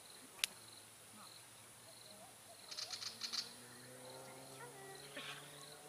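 Faint outdoor ambience of birds calling and insects chirping steadily. There is a single sharp click about half a second in and a quick run of rapid ticks around three seconds in.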